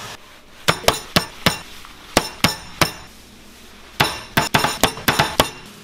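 Raw fish paste being slapped down hard onto a plastic-covered wooden cutting board, in two runs of sharp slaps, the second run quicker. The paste is being beaten to drive the air out and make it sticky and springy for fish balls.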